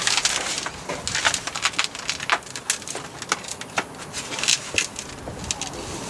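Heavy rear differential centre being manoeuvred into the axle housing: irregular metal clicks, knocks and scraping as it is wrestled onto the housing studs.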